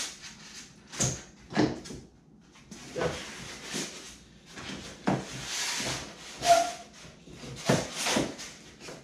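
Hand tools worked against the boat's wooden and foam hull: irregular knocks and clicks, with two brief scraping hisses, about three seconds in and again around five to six seconds in.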